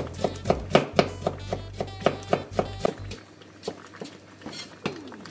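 Kitchen knife rapidly chopping daikon radish into thin strips on a wooden cutting board, about four chops a second, thinning to a few scattered taps after about three seconds.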